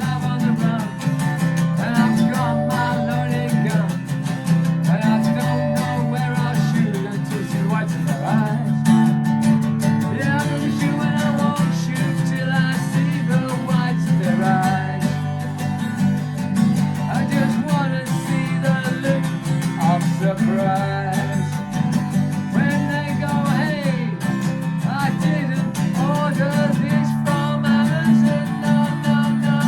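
Background music: a song with guitar playing, an instrumental stretch with no clear words.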